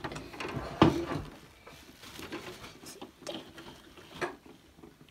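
Light taps and rustles of plastic dolls being handled and moved around a toy dollhouse, with a sharper knock just under a second in and another about four seconds in.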